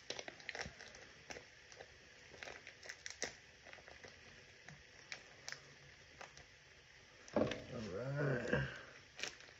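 Plastic bag of queso fresco crinkling and rustling in the hands while pieces are cut and crumbled off with a knife, giving scattered small clicks and taps. Near the end a short, wavering voice-like sound is louder than the rest.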